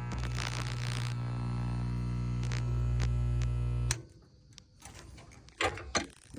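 Resistance spot welder humming steadily while it holds a weld, then cutting off suddenly about four seconds in. A few short knocks follow near the end.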